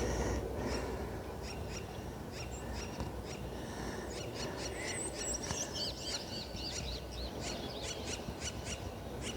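Birds chirping, with many short high notes repeating throughout and a busier run of sweeping, falling calls in the middle, over a steady low rumble.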